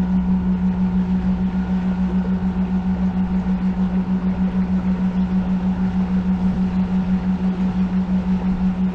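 ThrustMe Kicker electric outboard motors running at a constant speed: a steady low hum at one pitch that pulses evenly several times a second.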